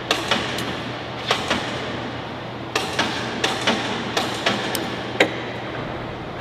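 Steel shackle and chain-hoist hook being handled on a lifting fixture: a dozen or so irregular sharp metal clicks and clanks, the loudest about five seconds in, over a steady low hum.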